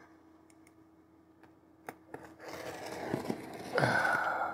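X-Acto hobby knife with a dull blade cutting through packing tape and cardboard on a mailing box. A single click comes first, then a scratchy slicing sound builds and is loudest over the last second or so. The dull blade makes it hard going.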